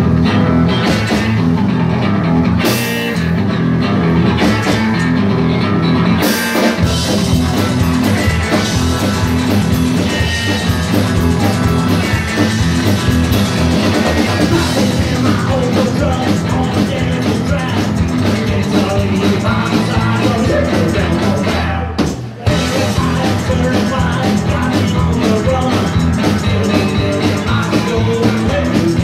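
A live rockabilly band playing a loud, driving number with drums and guitar, with a brief break in the sound about three-quarters of the way through.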